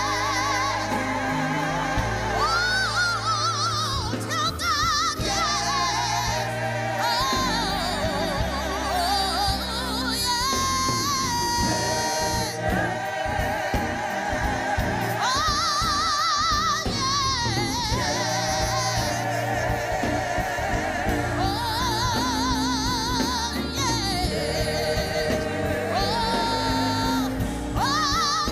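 Gospel singing with vibrato over a steady instrumental accompaniment.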